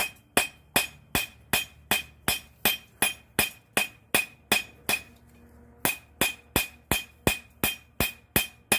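Hand hammer striking hot steel on an anvil, drawing out a knife blade: a steady run of blows at about three a second, each with a bright ring, with a short pause about halfway.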